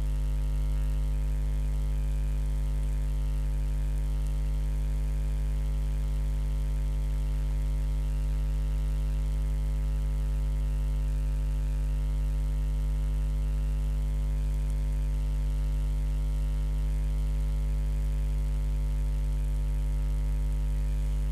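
Steady electrical mains hum with a stack of buzzing overtones, unchanging in pitch and loudness throughout.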